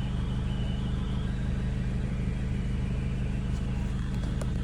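Jeep Cherokee engine idling steadily, with a constant low hum and no change in speed.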